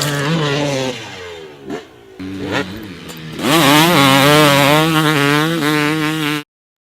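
Dirt bike engine revving: the revs fall at first and settle to an idle with a quick blip. Then it is held at high revs with the pitch wavering, until it cuts off suddenly near the end.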